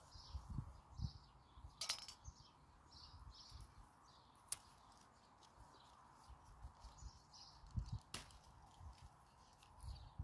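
Faint small-bird chirps repeating over quiet outdoor ambience, with low handling rustles and three sharp clicks, about two, four and a half and eight seconds in.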